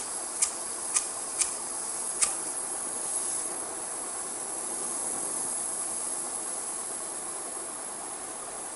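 Butane soldering iron hissing steadily as its gas escapes and burns as an open flame at the tip instead of heating the catalyst. About five sharp ignition clicks come in the first two and a half seconds.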